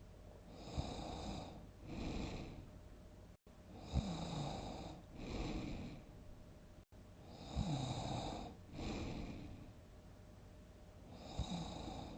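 A person snoring loudly and regularly, one breath about every three and a half seconds. Each breath is a longer snore that starts with a sharp catch, followed by a shorter second snore.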